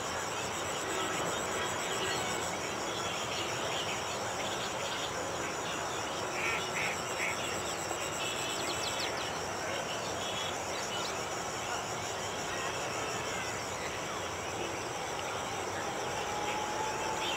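Steady outdoor ambience: an even hiss under a continuous high insect chirring, with a few short chirps about six and nine seconds in and a faint rising tone near the end.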